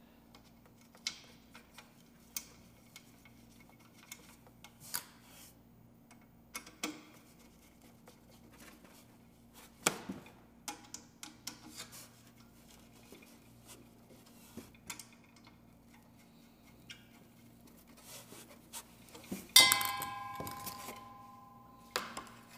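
Scattered light clicks and knocks of ceiling-fan parts being handled while the blades are fitted into the motor housing, over a steady low hum. Near the end comes one loud metallic clank that rings on for about two seconds.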